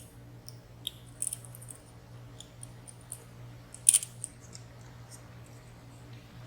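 Small metallic clicks and scrapes of a lock pick working the sliders inside a WSW W10 high-security padlock, with one sharper click about four seconds in.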